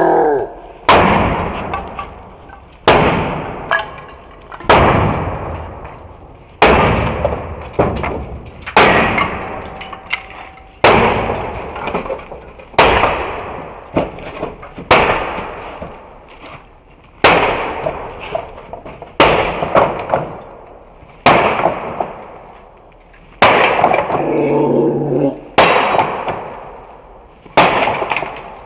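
Heavy battle axe chopping into a wooden pallet: about fourteen blows, each a sharp crack of splitting wood that fades out slowly, coming roughly every two seconds. A man's shout sounds between blows near the end.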